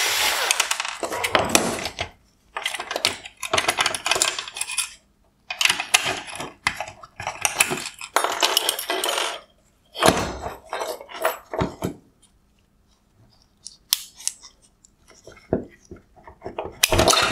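Plastic and metal parts of an LED headlight projector clicking, clattering and rattling in irregular bursts as they are pulled apart by hand and set down on a wooden workbench, with a quiet stretch about two-thirds of the way through.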